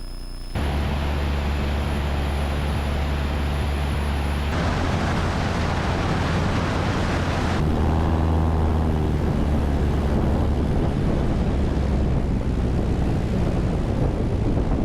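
Light aircraft's piston engine and propeller droning steadily under a loud rushing noise, in several spliced stretches that change abruptly about half a second and four and a half seconds in, with a brief wavering shift in pitch around eight seconds.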